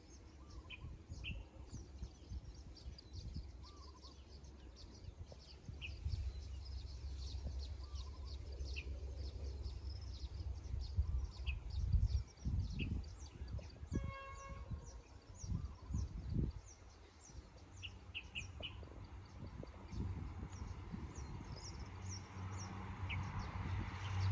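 Birds chirping over an uneven low rumble in open countryside, with a hum that grows over the last few seconds as a train begins to approach.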